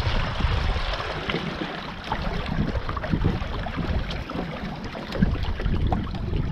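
Water splashing and sloshing against the hull of a small sailing catamaran under way, with wind rumbling on the microphone that eases in the middle and picks up again near the end.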